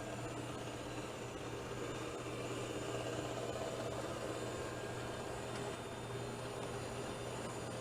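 Shark IQ robot vacuum running, a steady motor whir with a constant low hum.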